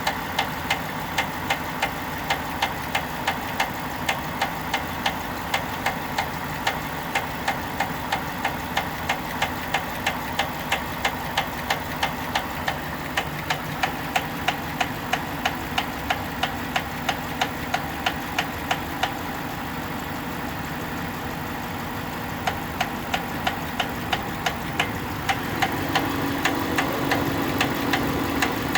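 Engine idling with a regular, sharp knock, about two and a half knocks a second. The knock fades for a couple of seconds about two-thirds through, then returns as the engine note grows a little louder near the end.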